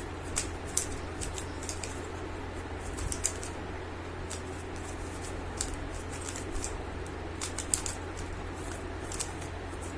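3×3 Rubik's cube being turned quickly by hand: irregular clicking and clacking of the plastic layers, over a steady low hum.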